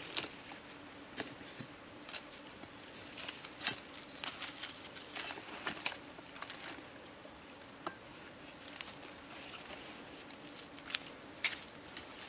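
Irregular rustling and crackling of dry leaf litter and rotten wood as a log is handled and pulled at by hand, with footsteps on forest debris.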